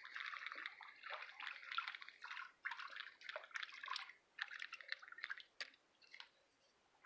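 Faint, irregular splashing and dripping water as a small hooked fish is drawn in, dying away after about five and a half seconds.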